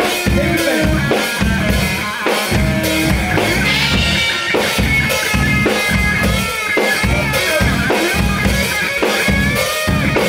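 Rock band playing loudly: a distorted electric guitar lead with string bends over a drum kit and bass.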